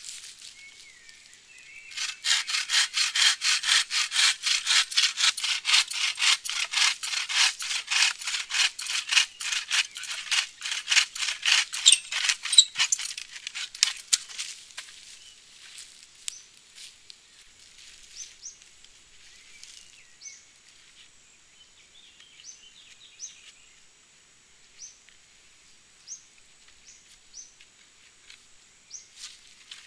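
Bow saw cutting through a dry log with quick, even back-and-forth strokes, about three a second. The sawing starts about two seconds in and stops about halfway through, leaving only faint small knocks and high chirps.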